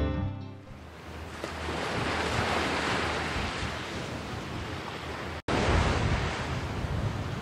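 Choppy sea surf washing and breaking on a rocky shore, with strong wind buffeting the microphone. The sound drops out for an instant about five and a half seconds in, and the low wind rumble is louder after it.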